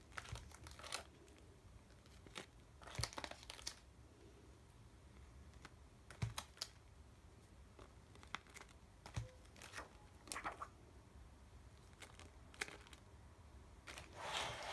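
Faint crinkling of clear plastic photo-album sleeves and a sheet of clear stamps being handled and slid into a sleeve, with scattered soft clicks and rustles.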